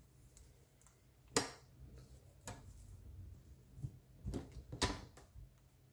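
Kitchen handling sounds while ripe bananas are peeled over a mixing bowl: about four short, scattered clicks and knocks against quiet room tone.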